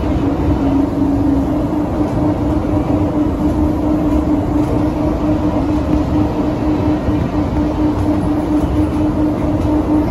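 Skylink automated people-mover train running along its elevated guideway, heard from inside the car: a steady running rumble with a constant motor whine held at one pitch.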